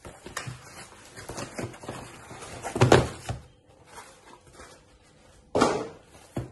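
Cardboard Amazon mailer being torn open and handled, with rustling and scraping of cardboard. The packed boxes slide out onto the table about three seconds in, louder again shortly before the end, and a sharp knock as a box is set down at the very end.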